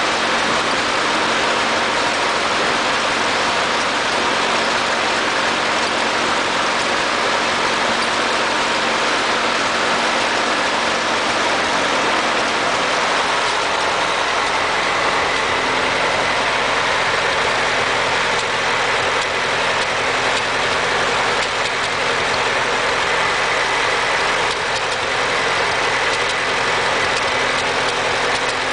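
Ford 8N tractor's four-cylinder flathead engine running steadily with a skip or misfire, which the owner cannot yet pin on the carburettor or the distributor.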